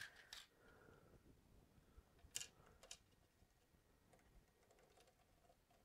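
A few faint, scattered clicks and taps of a small hand tool and screws handled at the corner of a 3D printer's heated bed, with quiet stretches between. The sharpest click comes about two and a half seconds in.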